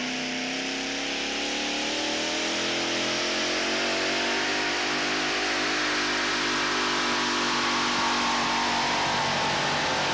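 Supercharged V8 of a two-wheel-drive pulling truck running flat out under load as it drags the weight sled. Its pitch climbs slowly over the first few seconds, then holds steady.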